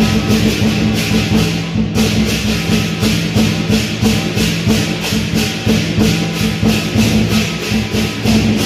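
Live lion dance percussion: a large Chinese lion drum with hand cymbals clashing in a fast, even beat over a low ringing tone. The cymbals drop out briefly about two seconds in.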